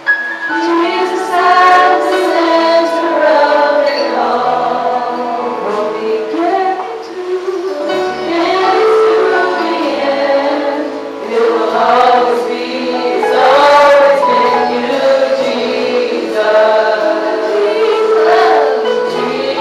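Church praise team of several women singing a gospel worship song together into microphones, over instrumental accompaniment holding low bass notes.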